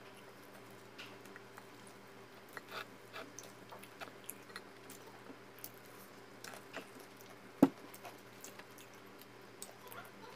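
Close-up eating sounds: chewing and plastic-gloved hands mixing rice and chicken in a bowl, with scattered small clicks and one sharp click about three quarters of the way through, over a faint steady hum.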